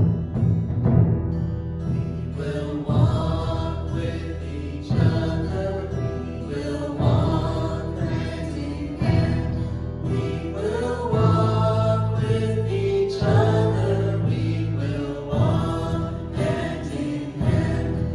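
A small church praise band playing a hymn: several voices singing together over bass guitar, guitars, a hand drum and piano, with a heavier beat about every two seconds.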